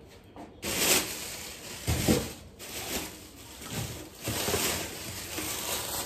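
Thin plastic grocery bag rustling and crinkling as it is handled, in uneven swells, with a soft knock about two seconds in.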